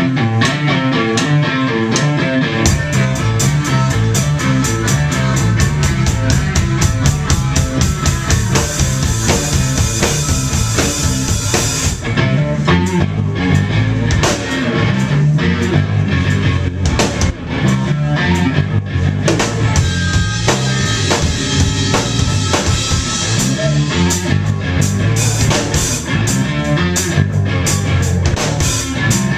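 Live blues-rock band playing an instrumental passage on drum kit, electric bass, electric guitar and blues harmonica. The drums start at once and the bass comes in about two and a half seconds later.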